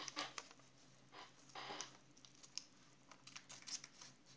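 Small scissors snipping a paper cutout, faint, with light clicks of the blades and the paper handled, and a short crinkle of paper about a second and a half in.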